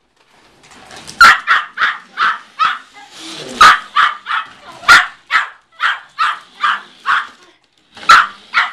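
A Yorkshire terrier barking excitedly at a remote-control toy car it is chasing: a rapid string of short, sharp barks, about two a second, starting about a second in with a brief pause near the end.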